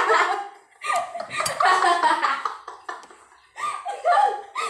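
People laughing in short wordless bursts with pauses between, as a woman reacts to the heat of very spicy instant noodles. A brief sharp click about a second and a half in.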